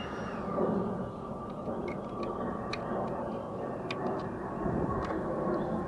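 Light, scattered clicks and ticks of plastic mirror-housing parts being handled and fitted back together, over a steady background hum.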